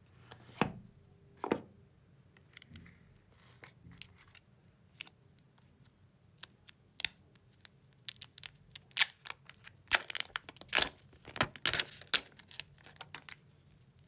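Unboxing handling noise from a cardboard phone box and the plastic film wrapping a new phone: crinkly tearing and crackling with scattered clicks. Two sharp clicks come near the start, and the crackling is thickest and loudest from about eight seconds in.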